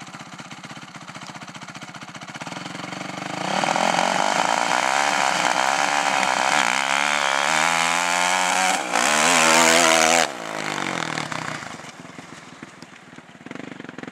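Honda CRF four-stroke dirt bike engine revving as the bike accelerates past, pitch rising and falling. After a few seconds it grows loud, dips briefly, then cuts off suddenly about two-thirds of the way through and carries on fainter as the bike moves away.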